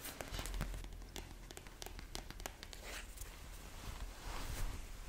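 Soft Liu Jo pashmina stole being scrunched and rubbed close to the microphone: fabric rustling with many small irregular crackles.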